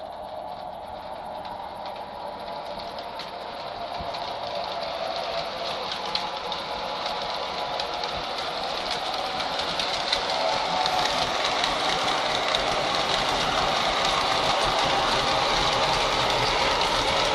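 MTH O-gauge model subway train running on its track: a steady whirr of motors and wheels that grows louder as the train comes closer.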